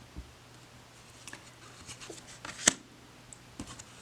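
Tarot cards being handled and flipped one at a time: scattered light clicks and taps, with one sharper click a little past halfway.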